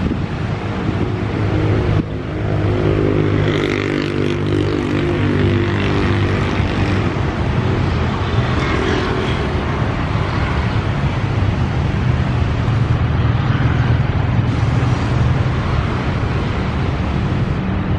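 KRL Commuter Line JR205 (ex-JR 205 series) electric multiple unit pulling away and rolling past: a low motor hum that climbs in pitch as the train gathers speed, over steady wheel and rail noise.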